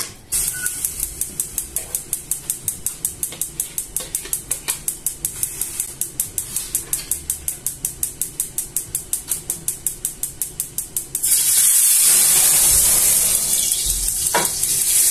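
Rapid, even ticking, about five clicks a second; then, about eleven seconds in, a loud steady sizzle of hot oil frying in a pan on the gas stove takes over.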